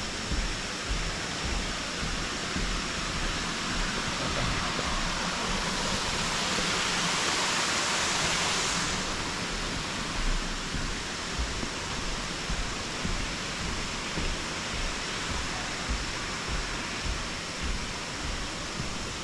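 Footsteps on a paved path, about one a second, over a steady rushing noise that swells for a few seconds in the middle.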